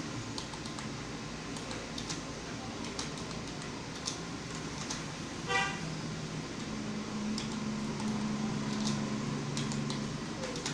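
Computer keyboard being typed on at an unhurried pace, separate key clicks throughout. A little past the middle a brief horn toot sounds once, and a low hum runs under the second half.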